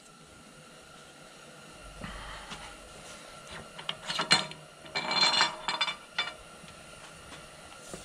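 Light metallic clinks and scraping from handling bronze feed nuts on a steel lead screw, with a quick cluster of clinks about five seconds in.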